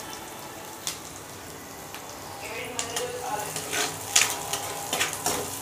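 Onion, garlic and dried red chillies sizzling steadily in hot oil in a kadhai, frying for a tadka. From about halfway, a spatula stirs and scrapes against the pan, with several sharp clicks.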